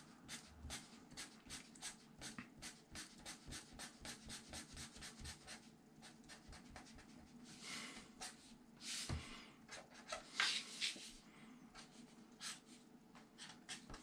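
Rapid hatching strokes of a black pen scratching on paper, faint, about five short strokes a second, with a few longer strokes later on.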